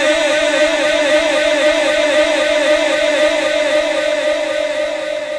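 A man's voice holding one long chanted note with a slow waver, fading away near the end.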